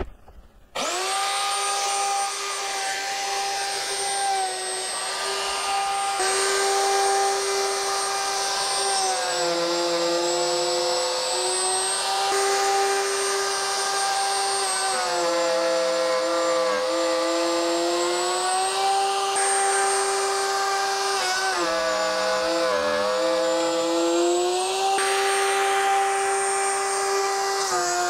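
Router running on a router sled, surfacing (flattening) an Osage orange slab: a steady high motor whine that sags in pitch several times as the bit takes load in the wood. It starts suddenly about a second in.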